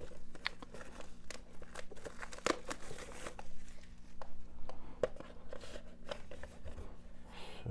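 Plastic shrink wrap crinkling and tearing as it is peeled off a Blu-ray steelbook case, in scattered small crackles and clicks. A faint steady low hum sits underneath.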